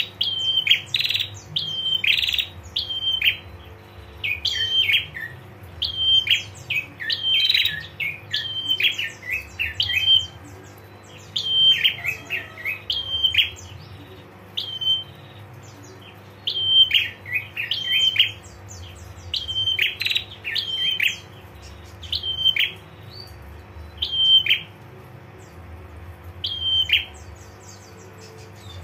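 Female prinia (prenjak) calling in the 'ngetir' manner: rapid, sharp, high 'tir' notes, each a brief level tone that drops in pitch. They come in quick runs of several calls with short pauses, thinning to single calls near the end.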